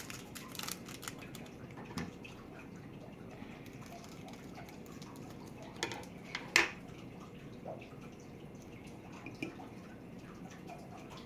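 A few light taps and clicks from a small plastic glitter container being shaken out over the glue mix, the loudest tap about six and a half seconds in.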